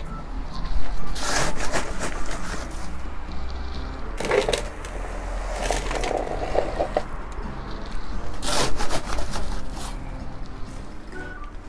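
Coarse, gritty potting mix poured from a scoop into a pot, the grains rattling and crunching in several short pours.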